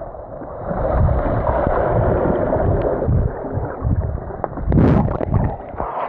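Muffled underwater rumbling and bubbling heard from a microphone held under a swimming pool's surface as a swimmer moves past. Near the end comes a louder splashing burst as it breaks the surface.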